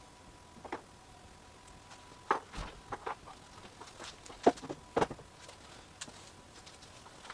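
Scattered knocks and clicks, a few at a time, the loudest about four and a half and five seconds in, over a faint steady high tone.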